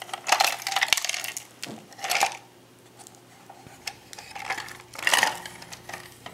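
A shot-up plastic toy robot being handled and turned over. Its loose plastic parts clatter and rattle in a few short bursts.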